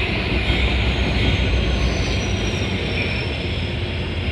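Freight train passing close by, a loud steady rumble and rattle of wheels on rails, with a faint thin high whine slowly dropping in pitch.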